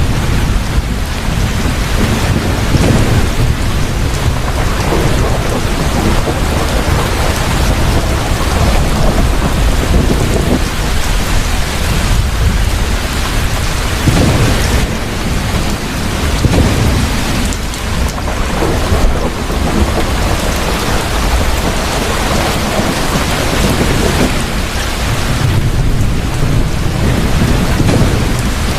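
Heavy rain falling steadily, with low thunder rumbling that swells and fades several times.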